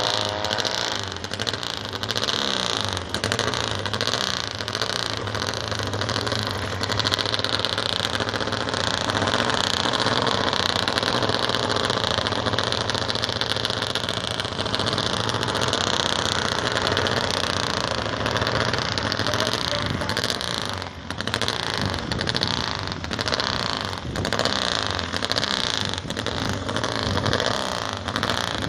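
Engines of several vintage racing motorcycles running together on the track, a continuous mixed engine noise, dipping briefly about 21 seconds in.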